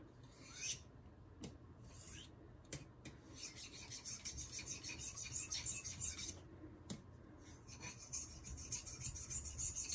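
Elmax steel knife blade being sharpened on a jasper natural whetstone, rasping in quick, even back-and-forth strokes, with a short pause in the middle. The stone's coarse side is lapped with 120 grit, so the gritty surface bites hard into the steel.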